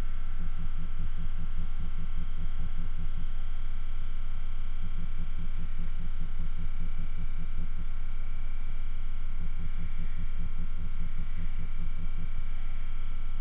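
Wind rumbling and fluttering on the microphone, a steady low roar over a faint constant high tone.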